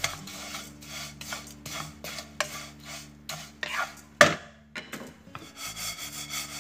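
Wooden spatula stirring dry vermicelli in a nonstick pan as it toasts golden, a rustling scrape in quick repeated strokes about three a second. There is a sharp knock about four seconds in.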